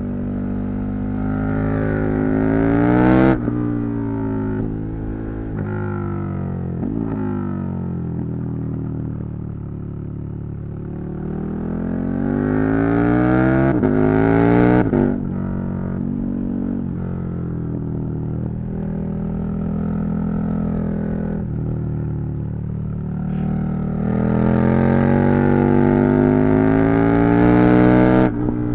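KTM 1290 Super Duke R's V-twin engine accelerating hard through the gears: the pitch climbs and drops suddenly at each shift, several times over. Around the middle it eases off and winds down before pulling hard again.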